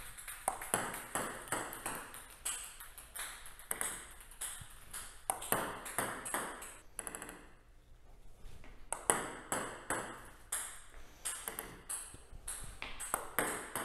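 Celluloid-type plastic table tennis balls being served with backspin pendulum serves, one after another: the paddle brushes each ball and it bounces on the table. The result is quick runs of sharp, ringing pings, with a short lull about halfway through.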